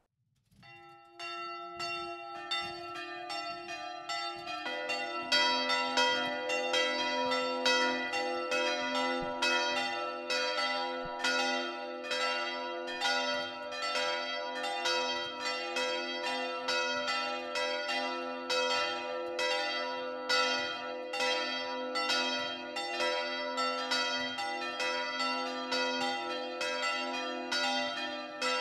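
Church bells ringing in a full peal. One bell starts about half a second in, a second joins at about two seconds, and a deeper one at about five seconds. The bells then ring on together, with overlapping strikes roughly every half second.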